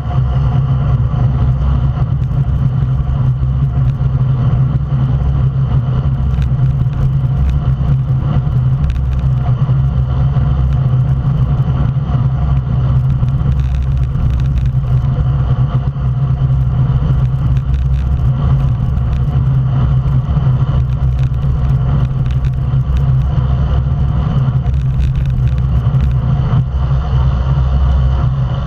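Steady low wind rush on the microphone of a camera mounted on a racing bicycle moving at speed, with road noise from the tyres on asphalt.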